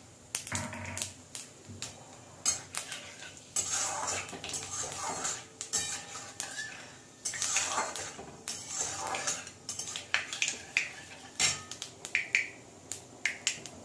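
A metal spatula scraping and clicking against the inside of an aluminium kadai in irregular strokes, stirring whole panch phoron seeds through hot mustard oil.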